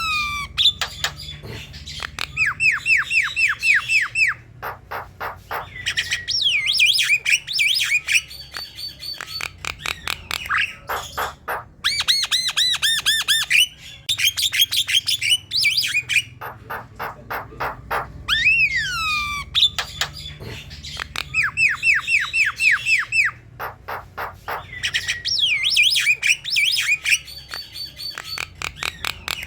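Javan myna singing: a long, busy phrase of swooping whistles, fast rattling runs of short chirps and harsh clicky notes. The same phrase comes round again about every six to seven seconds, as in a looped recording.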